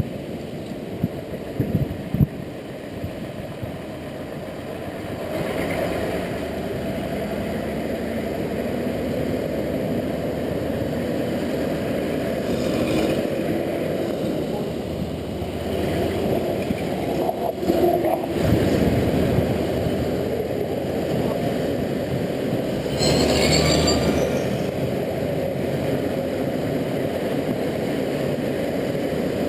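Honda Integra NC750D motorcycle riding in traffic: steady wind and road rumble with the engine running underneath, and a few passing vehicles swelling up briefly, the loudest near the end.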